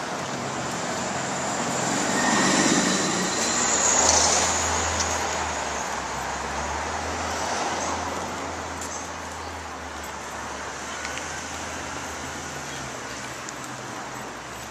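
City street traffic: passing cars, with the noise swelling about two and four seconds in and a low engine hum for several seconds after.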